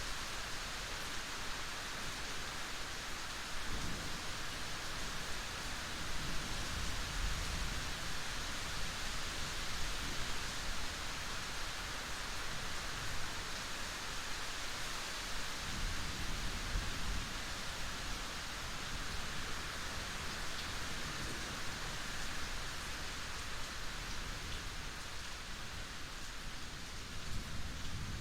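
Steady heavy rain hissing, with low rumbles of thunder swelling up several times: about 4 s in, again from about 6 to 10 s, around 16 s, and near the end.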